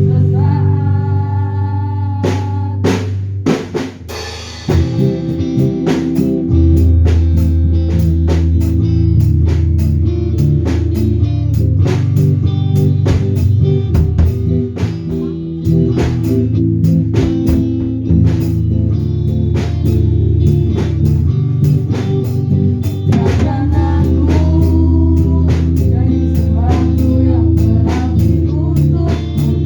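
Band music with drum kit, bass and guitar. After a short intro, the full band comes in about four and a half seconds in and plays on with a steady beat.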